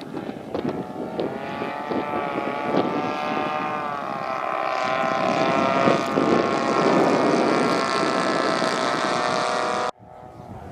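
Twin-engine radio-controlled scale model of a Douglas C-47 Dakota flying past, its two engines droning steadily. The drone grows louder as the model passes and dips slightly in pitch, then cuts off abruptly near the end.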